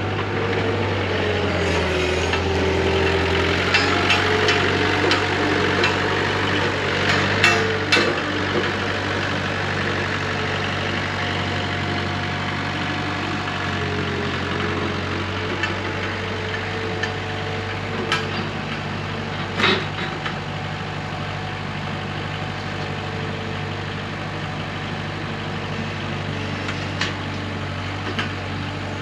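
Engine of a ride-on machine running steadily at low speed, with a few sharp metal clanks: two close together about eight seconds in and another about twenty seconds in.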